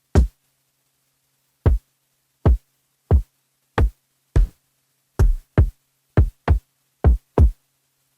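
Drum sample from an Akai Force groovebox played one hit at a time: twelve short, deep drum hits with a click on top, at an uneven pace, with silence between them.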